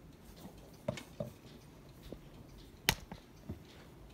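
A few light knocks and clicks from things being handled or set down, two close together about a second in and the sharpest, a single click, near three seconds.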